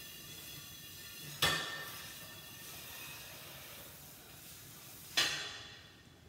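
Two sharp clanks of a dish knocking against hard kitchen surfaces, one about a second and a half in and another near five seconds, each ringing briefly, over a steady hiss of running water that thins out near the end.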